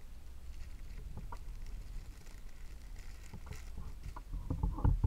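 Clear plastic packaging bags crinkling and rustling as bagged squishy toys are handled, with scattered small crackles and a louder bump near the end.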